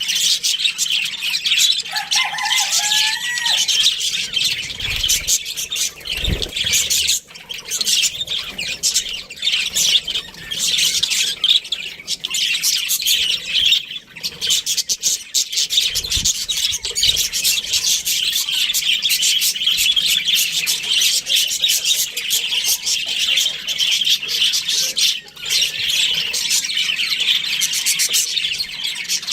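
Budgerigars chattering and chirping without a break, in rapid high warbles and squawks. A few brief low thuds sound under the chatter.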